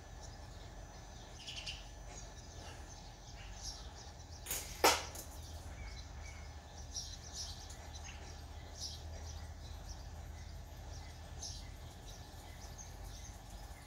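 A fishing slingshot shoots a practice arrow about five seconds in: a small click, then a short, sharp crack. Birds chirp faintly in the background.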